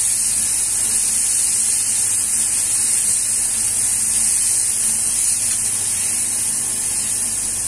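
Fresh beef patties sizzling on a hot flat-top griddle while one is pressed flat with a burger press: a steady, high hiss.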